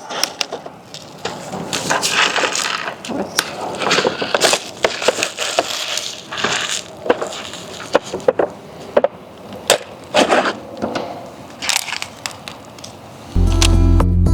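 Plastic wrapper of a Buldak Carbonara instant ramen packet being torn open and crinkled, an irregular run of crackles and sharp snaps. Music comes in near the end.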